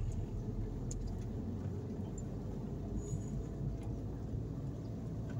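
Steady low rumble of a car driving, heard from inside the cabin, with a few faint ticks.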